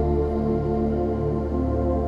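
Slow ambient new-age music of soft, sustained synthesizer pads over held low bass notes.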